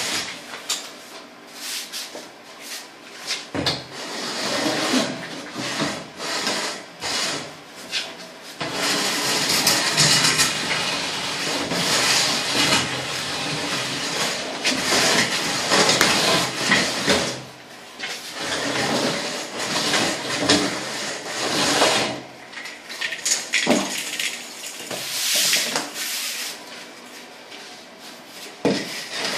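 Straightedge scraping over fresh cement render on a wall, levelling it. Repeated rough scraping strokes with short pauses between them, and a few sharp knocks of the rule against the wall.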